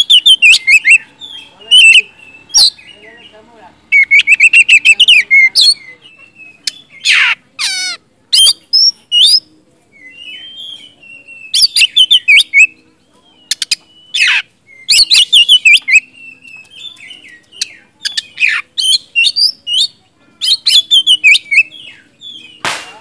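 Oriental magpie-robin (kacer) in full song, loud bursts of rapid chattering notes and whistles with short pauses between phrases.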